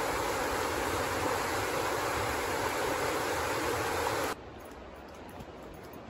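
Whitewater rapids of a rocky river rushing, a steady loud roar of water. It cuts off suddenly about four seconds in, leaving a much quieter background.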